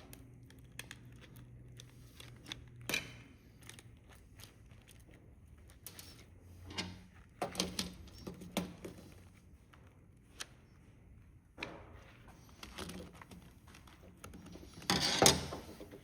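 Scattered small clicks, taps and knocks of a plastic remote control being taken apart by hand, its tiny screws and casing handled. A louder cluster of knocks comes near the end.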